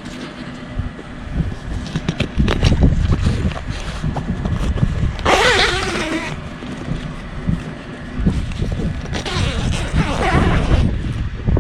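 Wind buffeting the microphone outdoors on the ice, with two louder rasping, scraping bursts, one about five seconds in and a longer one near the end.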